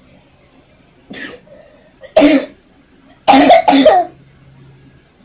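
A person coughing: a softer cough, then a hard cough, then a hard double cough, each short and harsh.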